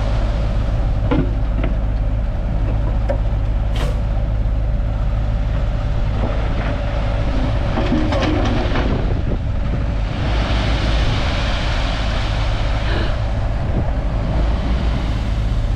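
Bulldozer's diesel engine running steadily with a heavy low rumble, with scattered clanks and squeaks, and a hissing rush from about ten seconds in that lasts several seconds.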